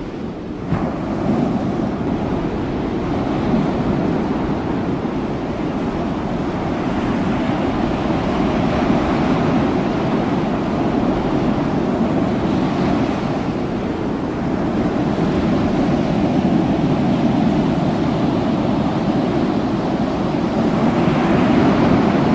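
Steady rush of wind on the microphone mixed with the wash of open sea, swelling louder near the end.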